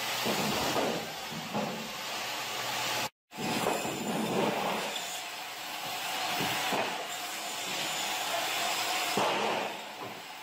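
Meat band saw running and cutting through frozen bluefin tuna loins, a steady harsh whirring hiss of blade and frozen flesh. The sound drops out completely for a moment about three seconds in.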